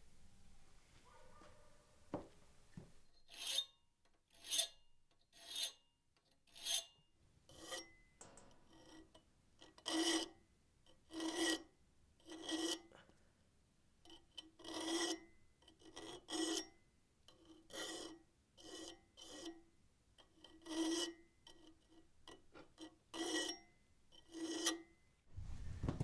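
Hand file rasping across a wrought iron workpiece in slow, regular strokes, about one a second, with a short pause partway through.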